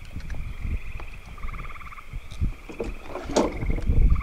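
Frogs trilling from the lakeshore in repeated pulsed calls, over irregular low thumping and sloshing from the paddle boat moving on the water.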